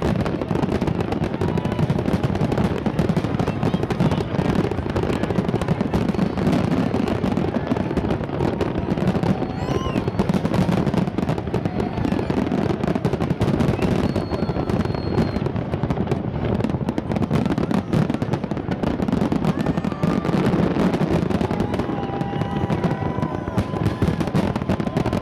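Aerial firework shells bursting in a dense, continuous barrage, the reports and crackle running together with no gaps.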